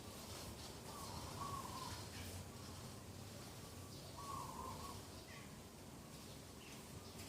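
Birds calling in the early morning: a short call is heard twice, about three seconds apart, with fainter high chirps from other birds over a steady low background hum.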